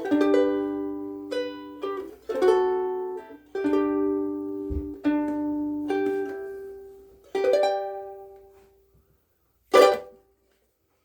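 KoAloha Pops Pineapple Sundae pineapple-shaped ukulele with pine back and sides and UkeSA strings, chords strummed one after another and left to ring. The last chord fades out about nine seconds in, followed by a single short sharp knock.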